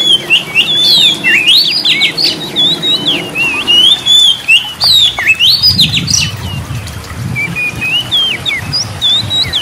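Oriental magpie-robin singing a fast, varied song of whistled notes that sweep up and down, with sharp rising upsweeps between them.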